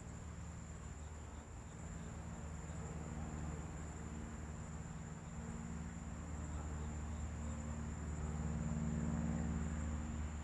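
Steady high-pitched insect trilling, like crickets, over a low droning hum that swells near the end.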